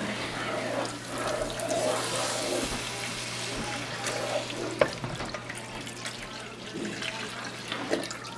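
Chicken stock pouring from a carton into a hot roux in a skillet: a steady trickling splash as the spatula works the thick mixture. A single sharp tap comes a little under five seconds in.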